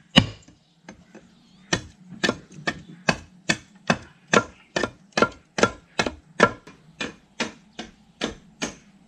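Machete chopping the end of a wooden post to a point: two loud strikes at the start, then after a short pause a steady run of sharp chops on the wood, about two to three a second.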